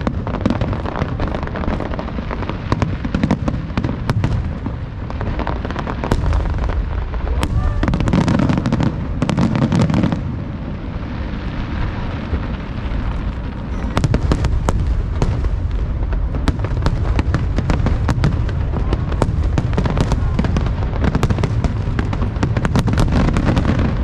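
Fireworks display: a rapid, continuous barrage of bangs and pops over deep booming, easing off for a few seconds midway before building back up.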